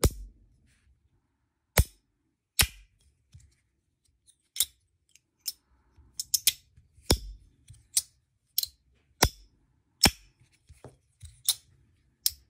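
Magnetic brass slider fidget toy clicking as its top plate is slid back and forth in the hand and snaps onto its magnets: sharp metallic clicks, a few at first, coming faster and closer together in the second half.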